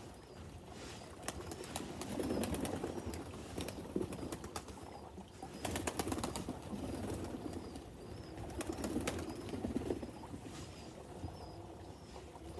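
Pigeons flapping their wings in several loud flurries, each a rush of beats. A faint, short, high chirp repeats about once a second throughout.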